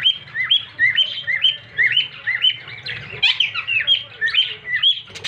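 Male cockatiel calling: a rapid, repeated series of short whistled chirps, a lower note followed by a higher one, about two pairs a second, with a harsher squawky patch a little past the middle.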